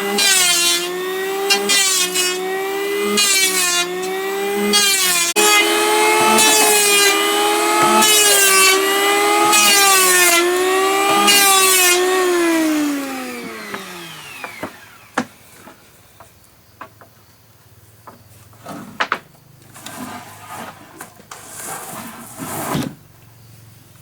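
Power wood planer cutting timber: a loud motor whine that dips in pitch with a burst of hiss about every second as the blades bite. About 13 s in it is switched off and winds down in a falling whine, followed by scattered knocks and scraping of wood being handled.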